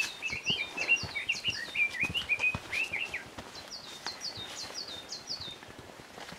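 Two wild songbirds singing. One gives a rapid run of twittering notes for about the first three seconds. The other repeats a series of high, falling notes at the start and again about four seconds in. Irregular footsteps of hikers on the trail run underneath.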